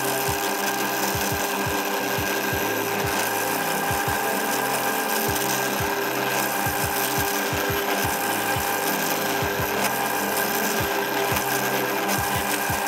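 Bench drill press running with a steady whine while its bit bores holes down through a block of pine, with irregular low knocks as the block is fed and moved under the bit.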